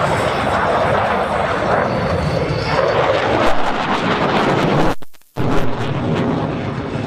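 Jet noise from a MiG-29's twin engines during a display pass, a loud continuous rush. The sound cuts out completely for a moment about five seconds in, then returns.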